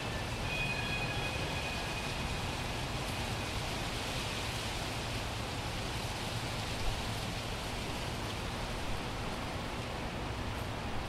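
Steady, even hiss with no distinct events; a couple of faint high tones fade out about a second in.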